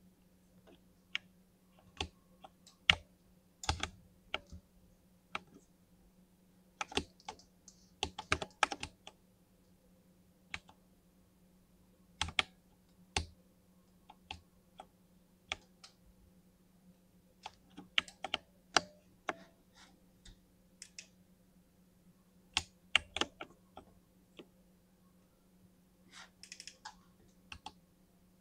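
Keystrokes on a 60% mini mechanical keyboard with lubed linear switches: irregular presses, some single and some in quick bursts of several keys, with short pauses between.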